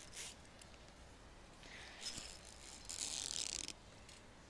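Brief scraping and rustling as someone climbs into a trampoline's net enclosure: a short scrape, then a longer, louder one about three seconds in.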